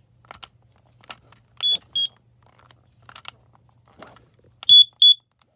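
A smoke alarm on a low battery sounding in short high beeps, two at a time, about three seconds apart, with a few sharp clicks between them.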